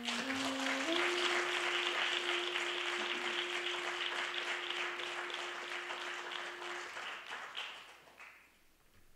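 Applause, many hands clapping, that thins out and fades away after about eight seconds. A held musical note sounds underneath, stepping up in pitch in the first second and stopping near seven seconds.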